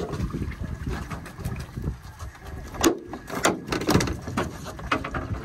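Knocks and clatter from a jug line being handled over the side of a metal jon boat, with a few sharp knocks in the middle, over a low wind rumble on the microphone.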